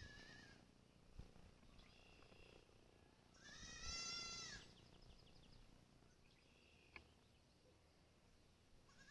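Faint, high-pitched animal calls with a clear pitch, repeated every couple of seconds. The loudest, about four seconds in, is one drawn-out call of just over a second that rises and falls slightly.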